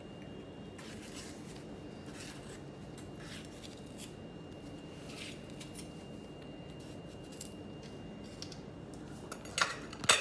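Soft handling noises as pieces of red bell pepper are put into a blender jar, over a steady low hum. In the last second a few sharp clicks of a knife cutting an onion against a plate.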